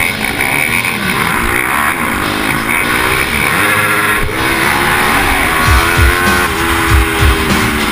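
Onboard sound of a supermoto pitbike's single-cylinder engine racing, revving up and dropping back in pitch through the gears.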